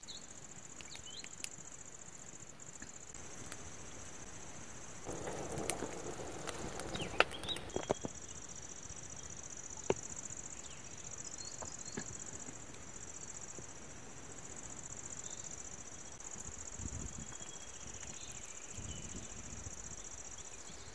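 Night insects chirring in a steady, high-pitched chorus. Scattered sharp clicks, and a brief rustle about five to eight seconds in, sound over it.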